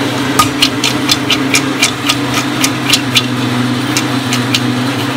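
Popcorn kernels popping in an aluminium pan: a quick run of sharp pops, about four a second, thinning to a few scattered pops near the end as the batch finishes. A steady low hum runs underneath.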